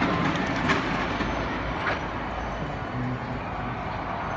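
Tail end of a fireworks display: a few scattered sharp pops in the first two seconds over a steady background din that slowly fades.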